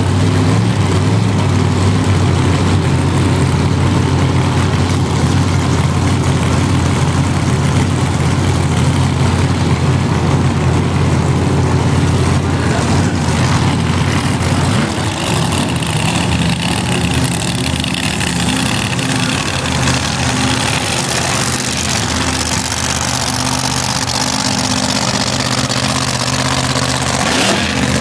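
Drag racing cars, a funny car and an altered, running loud and steady at the starting line, with a rising rev near the end.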